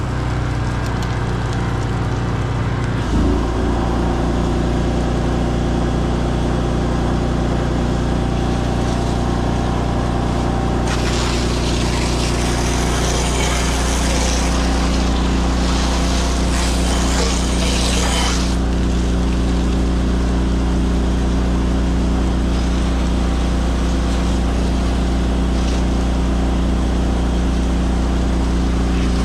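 Pressure washer's gas engine running steadily. About eleven seconds in, a loud hiss of spray joins it for about seven seconds as the wall is sprayed with the downstreamed bleach solution.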